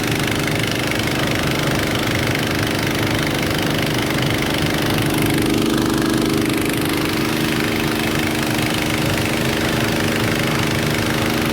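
Hot-water pressure washer's engine running at a steady speed with its oil burner firing, a constant mechanical drone.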